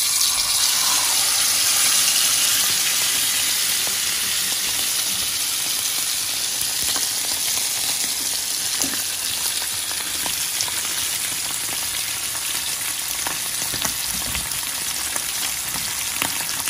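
A whole masala-coated golden pomfret sizzling and crackling in hot coconut oil on a flat tawa. It is loudest as the fish goes into the oil, then eases slowly into a steady fry.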